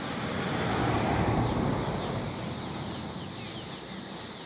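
A vehicle passing over the bridge: a rush of road noise that swells for about a second and then fades away, over a background of short, high, repeating chirps.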